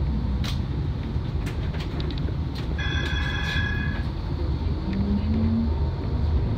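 Bombardier Flexity tram running along its track, heard from the cab: a steady low rumble with a few faint clicks. About three seconds in, a high ringing tone sounds for about a second.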